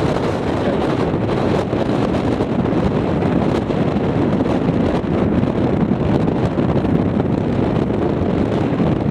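Strong wind buffeting the microphone, a steady loud rumbling rush.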